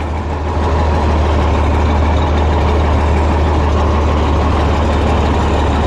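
Heavy farm machine's diesel engine running steadily, a constant low drone with no change in speed.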